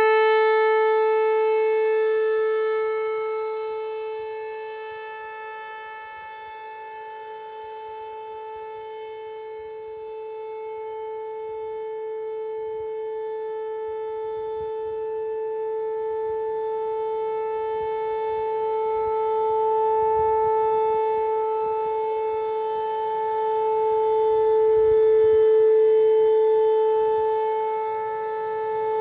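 American Signal T-135 rotating outdoor warning siren sounding a steady single-pitch tone during its monthly test. The tone swells and fades in loudness: it drops off over the first few seconds, builds back up to its loudest about three-quarters of the way in, and dips again near the end.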